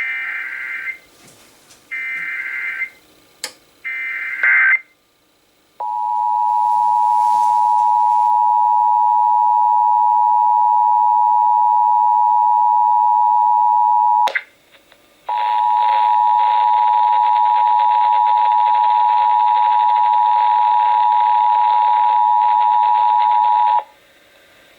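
Emergency Alert System test signal. First come three short bursts of warbling SAME header data tones. Then the steady two-tone attention signal (853 and 960 Hz) sounds for about eight seconds, there is a click and a brief gap, and the attention signal sounds again for about eight seconds with hiss behind it.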